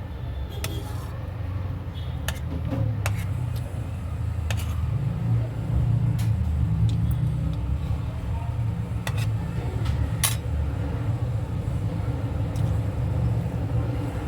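Close-miked eating: chewing fried rice, heard as a low uneven rumble, with scattered sharp clicks of a spoon against the plate.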